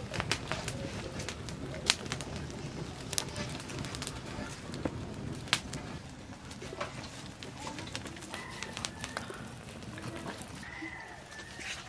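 Small open fire of dry leaves and twigs crackling, with irregular sharp pops, the loudest about two seconds and five and a half seconds in. Birds call briefly in the second half.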